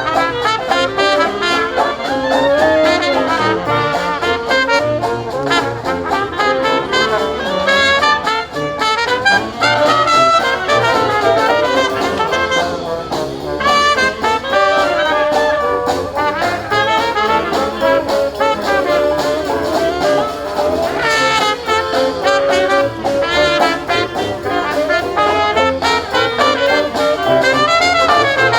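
Live brass band playing a jazzy tune, with trumpets and trombones carrying the melody.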